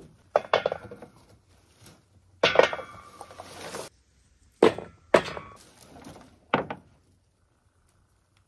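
Handfuls of peanuts in the shell dropped into a speckled enamelware pan, clattering on the enamel and on the nuts already inside. There are several short clatters and one longer rattle of about a second and a half near the middle.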